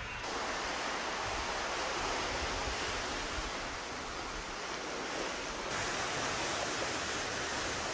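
Steady ocean surf mixed with wind buffeting a camcorder microphone, a dense even rush with no distinct waves breaking out of it.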